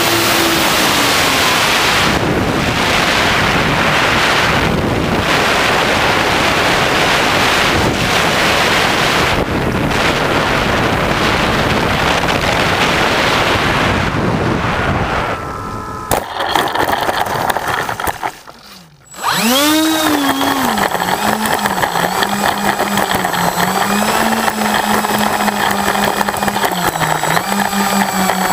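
Wind rushing over a small RC plane's onboard camera microphone, with the electric motor's whine dropping away about a second in as the plane glides down. About sixteen seconds in the noise changes sharply and nearly stops a couple of seconds later. Then the motor whines up again and runs on with a wavering pitch.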